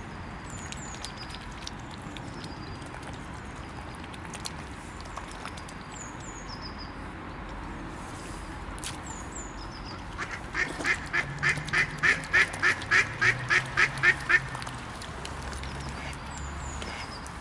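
A duck quacking in a quick run of about fifteen calls, about four a second, partway through, the loudest sound here. Faint high chirps of a small songbird come and go around it.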